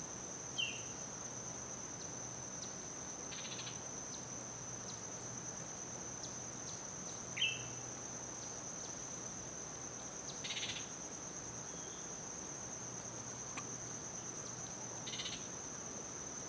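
Steady high-pitched insect drone, with three short buzzy pulsed calls spaced several seconds apart and two brief sharp chirps, the louder one about seven seconds in.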